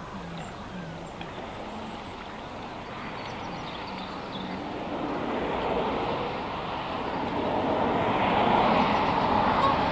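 Road traffic noise, a rushing that swells over the first several seconds and then stays loud.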